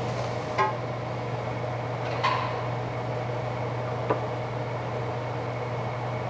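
Steady low hum of a kitchen appliance, with three light knocks of cooking utensils about a second and a half apart.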